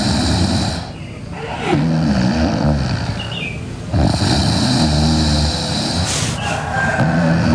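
A sleeping girl snoring loudly: long, rattly snores follow one another with only short dips between them.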